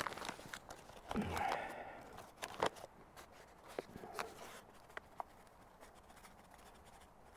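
Crinkling and rustling of a flour bag being handled and tipped to pour flour into a bowl, in scattered short rustles and light clicks, the loudest a rustle about a second in.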